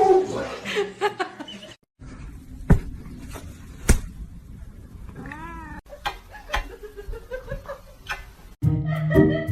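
A domestic cat meowing once, a short call that rises and falls in pitch, among scattered sharp knocks and clicks.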